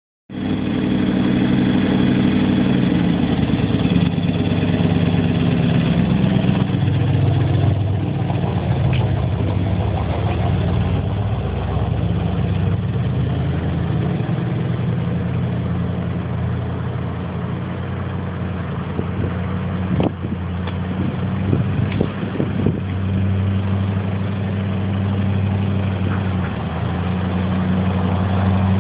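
1965 Chevrolet Corvette Stingray coupe's V8 running through side-exit exhaust pipes, idling and then driving off at low speed with a steady, deep exhaust note. A few sharp clicks come about twenty seconds in.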